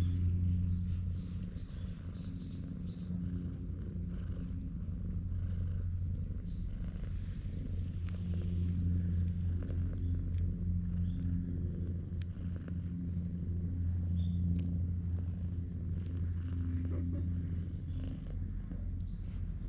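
A black-and-white cat purring close up, a low, steady purr that carries on without a break.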